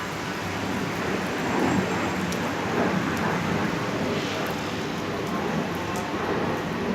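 Heavy rain falling steadily, a dense hiss with scattered drop ticks, under a low rumble that swells and fades a few times.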